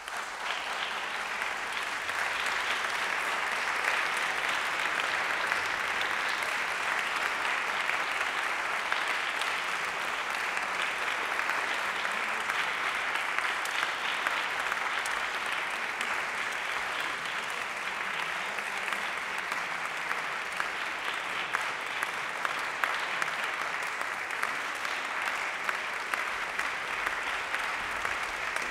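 Audience applause in a concert hall, breaking out suddenly from silence and then continuing steadily.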